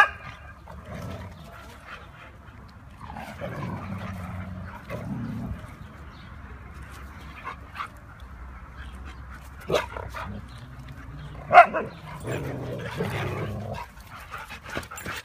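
Several Siberian huskies at play, vocalizing together: three sharp barks, one right at the start and two more about ten and eleven and a half seconds in, with lower, drawn-out growly vocalizing in between.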